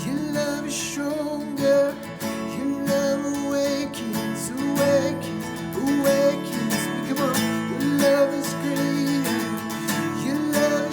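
Music led by a strummed acoustic guitar, playing steadily.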